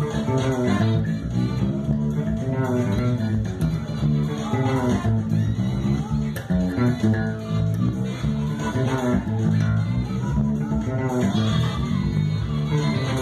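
Fretless electric bass played fingerstyle, a busy jazz-funk bass line over a full band backing track.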